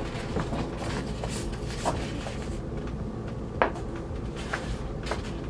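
Large folded paper poster being opened out and held up: paper rustling for the first couple of seconds, then scattered crisp crinkles and taps, the sharpest about three and a half seconds in.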